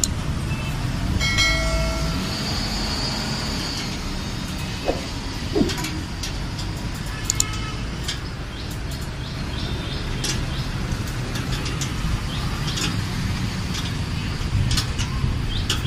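Metal clicks and ticks from a spanner working the bolt that fixes a steel tube handle to a platform scale's frame, over a steady traffic rumble. A short ringing tone sounds about a second in.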